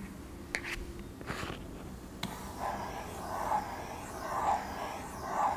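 Hard plastic nib of a Xencelabs pen scratching across the matte textured surface of a pen tablet. A few small clicks and a tap come first, then steady back-and-forth strokes about once a second.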